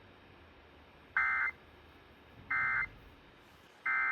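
Emergency Alert System end-of-message code: three short, shrill digital data squawks about 1.3 seconds apart. These signal the end of the alert.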